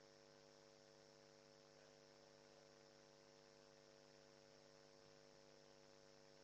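Near silence with a faint, steady electrical hum in the recording.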